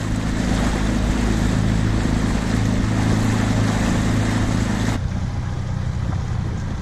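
Small outboard motor of an inflatable dinghy running steadily under way, under a loud rush of wind and water. About five seconds in the rushing drops away abruptly while the motor's hum carries on.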